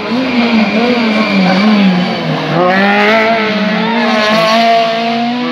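Rally car engines at high revs, the pitch rising and falling as the drivers lift, shift and accelerate. A second car takes over about two and a half seconds in with a higher, climbing engine note.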